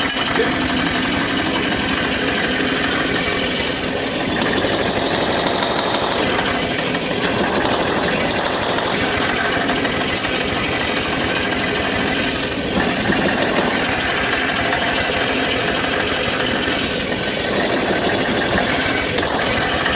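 Power hammer running, striking hot steel over and over in a rapid, steady rhythm as tong stock is drawn down.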